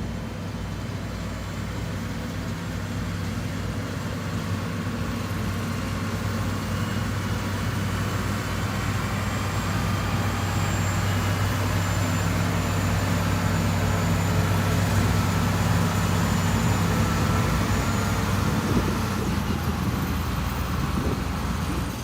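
Heavy diesel engine of earthmoving machinery running steadily, growing louder toward the middle and easing off near the end.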